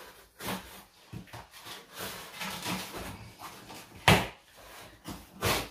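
Small cardboard box being worked open by hand: cardboard and packing tape rustling and scraping, with a sharp knock about four seconds in and another near the end.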